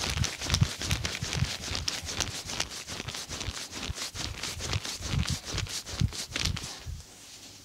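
Rapid percussive massage: hands slapping and chopping on the body in a fast, even rhythm of thuds, stopping near the end.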